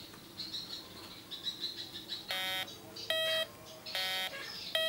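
MD9020C metal detector beeping from its speaker: four short electronic beeps starting a little over two seconds in, about one every 0.8 s, alternating between two different tones, the detector's audio response to a metal target.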